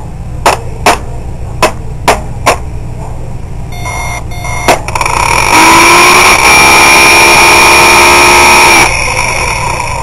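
Five quick knocks of one hard drive struck against a seized Maxtor hard drive, one more a couple of seconds later, then the seized drive's spindle motor straining under power with a loud, steady, buzzing whine for about three and a half seconds before it cuts off suddenly: the heads are stuck to the platters.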